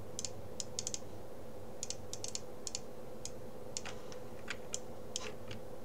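Computer mouse and keyboard clicks: about fifteen light, irregular clicks over a faint steady hum.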